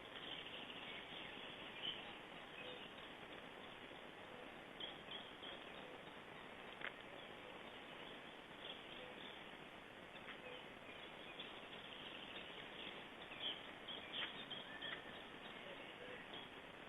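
Faint outdoor ambience through a nest-camera microphone: a steady hiss with scattered short, high chirps of small birds and a few sharp ticks.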